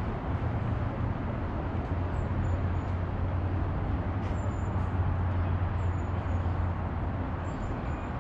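Steady low rumble of outdoor background noise, with a few faint high chirps scattered through it.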